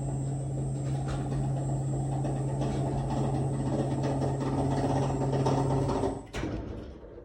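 Stiltz Alta Duo through-floor home lift travelling up, its drive motor giving a steady hum. About six seconds in the motor stops with a click as the lift halts. The lift makes noises at intervals while travelling, which the owner is complaining about.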